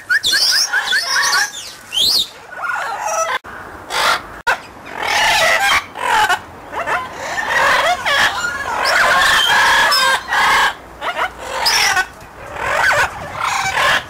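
Amazon parrots calling over and over: a run of loud squawks, whistles and chatter with rising and falling sweeps and only short gaps between calls. These are the contact calls the parrots use to keep in touch with each other.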